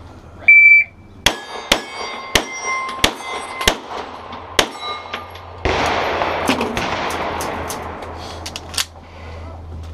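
A shot-timer start beep, then a fast string of pistol shots, each followed by the ring of a hit steel target plate. In the latter half, a steady rush of noise with a few more sharp cracks.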